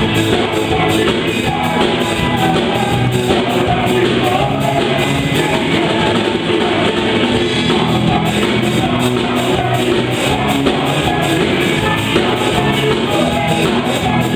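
Worship band rehearsing a song live: singing over electric guitar and a drum kit keeping a steady beat.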